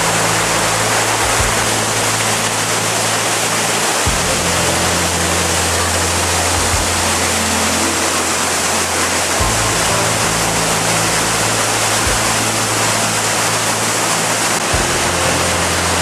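Waterfall in flood, its high meltwater torrent making a loud, steady roar. Low sustained music notes run underneath and change every few seconds.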